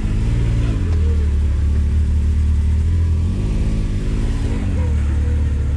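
Side-by-side UTV engine, a Can-Am Maverick X3, running under load at low speed over rocks, with the revs rising and falling in short blips near the start and again a little past halfway.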